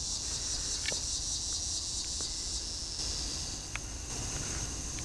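Steady high-pitched evening chorus of crickets and other insects. One layer of the chorus stops about three and a half seconds in while the rest keeps going.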